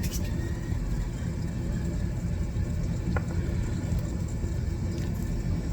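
Steady low rumble, like a motor or fan running, with one faint click about three seconds in.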